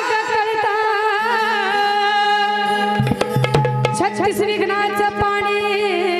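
A woman sings live through a microphone, her voice wavering with ornaments on held notes, over a steady low drone and drum strokes. A run of quick drum hits comes between about three and five seconds in.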